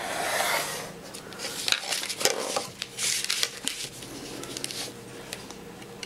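Pencil scratching along a clear plastic ruler on white cardstock, marking a cutting line, in two strokes, one at the start and one about three seconds in, with a few light taps and paper rustles as the ruler and card are shifted.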